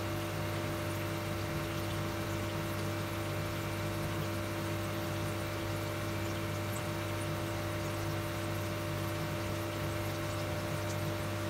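Sweet potato chunks deep-frying in a pot of oil: a steady sizzle with faint scattered crackles, over a steady low hum.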